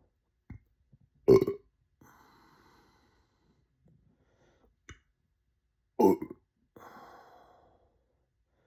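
A person burping twice: two short, loud burps about five seconds apart, each followed by a soft breath out.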